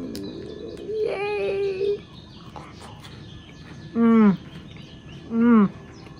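A woman humming "mmm" with her mouth closed while she chews a chocolate wafer, a sound of enjoyment: one steady hum about a second in, then two short, loud hums falling in pitch near the middle and end. Wrapper rustling at the start.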